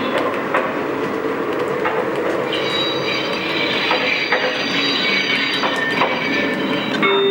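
A Lionel O-gauge model passenger train rolls along the track with a steady running noise and scattered clicks from its wheels over the rail joints. From about two and a half seconds in, a thin high squeal from the wheels is added.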